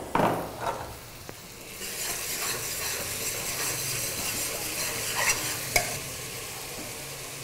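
Sliced onions and green chillies sizzling in hot oil in a pressure cooker pan as a metal spoon stirs them, with a sharp clank at the start and a few scrapes and clicks against the pan. The sizzle grows louder about two seconds in.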